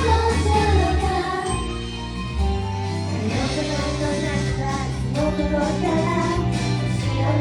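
Pop song: a female voice singing a melody over a band backing with a steady bass line.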